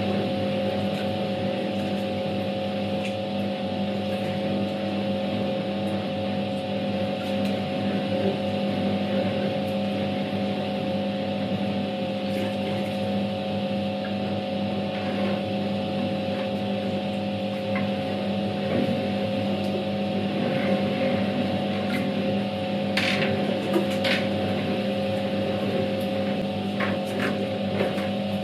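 Światowit M4 impeller washing machine washing a load: its capacitor-run EDA SED-110-4 electric motor hums steadily while the impeller churns the water and laundry. A couple of brief sharper noises stand out near the end.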